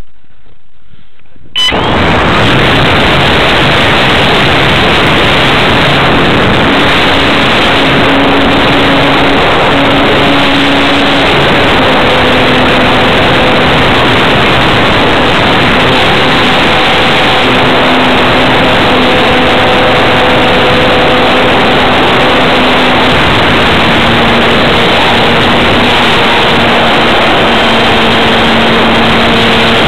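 Electric RC airplane's motor and propeller heard from a camera on the fuselage, buried under heavy wind rush on the microphone: a loud, steady rush with a faint motor hum that shifts in pitch as the throttle changes. The noise jumps up suddenly about a second and a half in.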